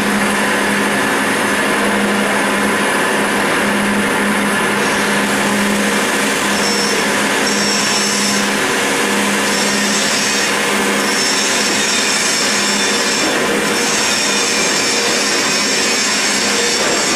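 CNC roll turning lathe cutting grooves into a steel roll: a steady, loud machining noise with a constant low hum, and a high squeal from the tool that comes and goes several times.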